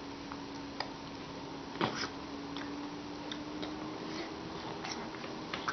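Soft scattered clicks and smacks from a baby's mouth as it tastes a lemon, the loudest a little under two seconds in, over a steady faint hum.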